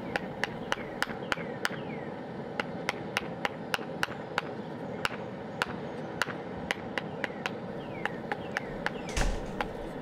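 Blacksmith's hammer striking steel on a small stake anvil made from a railroad spike, steady sharp blows about three to four a second. A brief louder rush of noise comes near the end.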